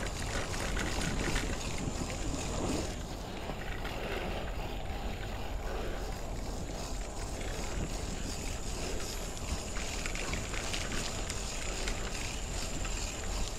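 Steady wind noise buffeting the microphone of a camera carried on a moving bicycle.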